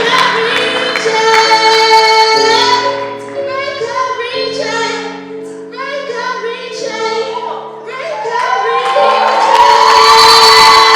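Solo singer performing a song over a backing of steady held notes. The voice sings held, wavering notes and quick runs, drops quieter in the middle, then swells to a loud sustained high note near the end.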